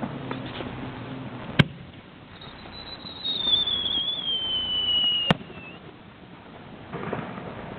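Fireworks: a sharp bang, then a high whistle falling slowly in pitch for about three seconds, ended by a second sharp bang.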